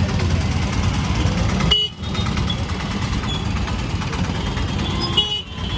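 Busy street traffic heard from a moving rickshaw: a steady low rumble of engines and road noise, with a few short vehicle horn toots. The sound dips sharply and briefly twice.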